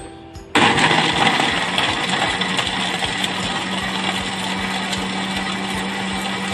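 Electric countertop blender switched on about half a second in, starting loud and then running steadily as it grinds chunks of mature coconut flesh with water into a pulp for coconut milk. Its motor hum steps up slightly in pitch a couple of seconds in.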